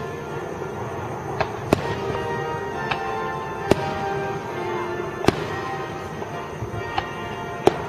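Fireworks going off, with about five sharp bangs spread over several seconds, over music playing throughout.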